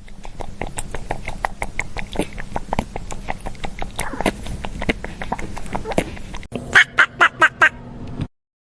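Farm fowl: many quick irregular clicks for several seconds, then five short loud calls in quick succession.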